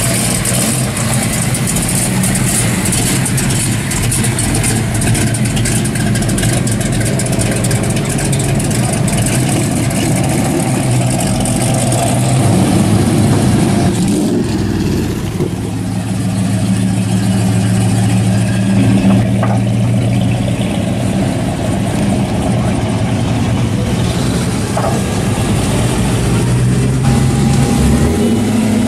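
Engines of classic cars and hot rods (a late-1960s Ford Mustang fastback, a Cobra-style roadster, a 1930s-style coupe hot rod) running at low speed as the cars drive past one after another, with a steady low engine note. The sound shifts about halfway through as another car takes over.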